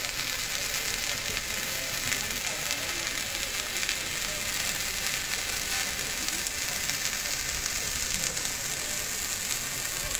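Welding arc from a robot-guided welding torch laying a bead along a steel seam, crackling and sizzling steadily at an even level.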